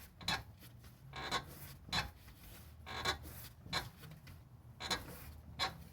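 Repeated short creaks and clicks, roughly two a second, from a Ford Mustang's front lower control arm as the suspension is rocked by hand. The worn-out ball joint and destroyed control-arm bushing leave metal rubbing on metal, the source of the clunk heard when braking.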